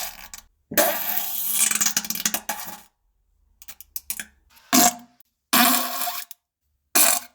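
A series of farts: one long, noisy fart lasting about two seconds, then after a pause a few shorter ones in the second half.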